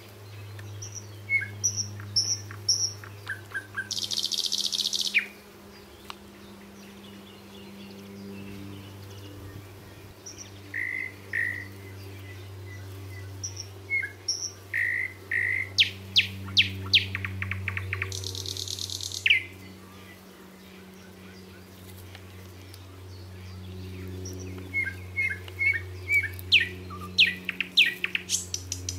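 Songbirds chirping and trilling in many short high notes, with two brief dense high buzzy phrases, over soft background music of low held tones that shift now and then.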